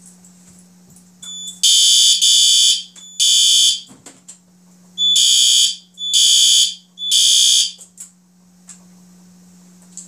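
Fire alarm horn strobe sounding in the temporal-3 evacuation pattern: two groups of three short, loud, high-pitched horn blasts with a pause between the groups.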